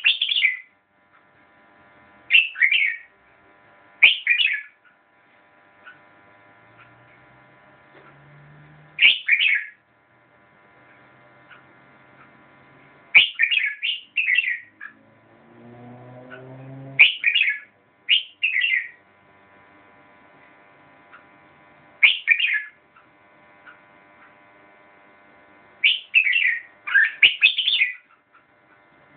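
Caged red-whiskered bulbul singing short, loud phrases of quick whistled notes, about ten bursts repeated every few seconds with gaps between.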